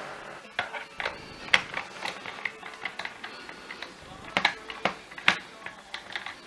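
Irregular plastic clicks and knocks from a crosshead screwdriver turning screws in a Vax Blade vacuum's plastic floor head as it is handled, with a few sharper knocks about one and a half, four and a half and five seconds in.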